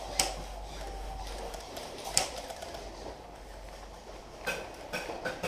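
Two sharp cracks about two seconds apart, then a quick run of light clicks and taps near the end, the sounds of an airsoft skirmish heard from inside a small wooden building.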